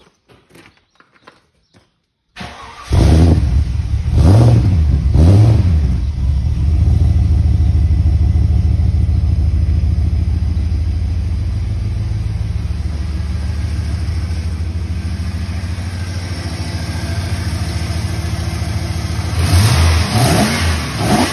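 Stock 5.0-litre V8 of a Holden VS Commodore ute cranking briefly and starting about two seconds in, revved twice as soon as it catches, then idling steadily while the fast idle slowly eases down. A couple of short revs come near the end.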